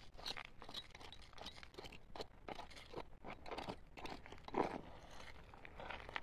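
Irregular crunching and scraping of riverbed gravel and stones being dug through, with a louder crunch about four and a half seconds in.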